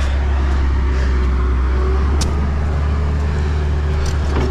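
Excavator's diesel engine running steadily with a deep, even hum. A single faint click is heard about two seconds in.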